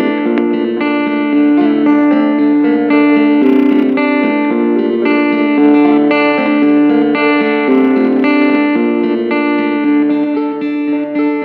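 Guitar music: a guitar improvising over a song, playing sustained notes and chords that change about once a second, with a lower line moving underneath.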